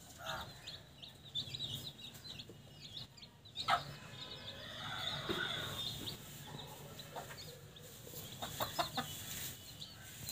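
Newborn country-breed chicks peeping steadily with many short high chirps, while the mother hen gives a few low clucks.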